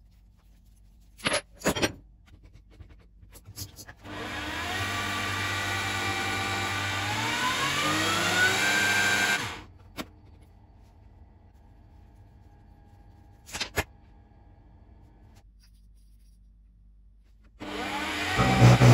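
A small power tool runs steadily for about five seconds in the middle, its pitch rising near the end of the run before it cuts off. A few knocks and clicks of workshop handling come before and after it, and background music starts near the end.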